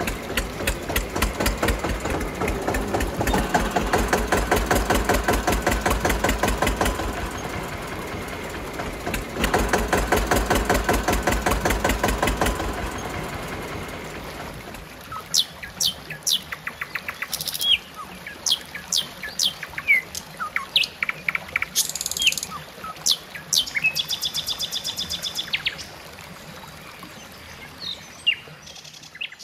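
Tractor engine sound chugging in fast, even pulses, swelling twice and fading out about 14 seconds in. Birds then chirp and call in quick rising and falling notes for the rest.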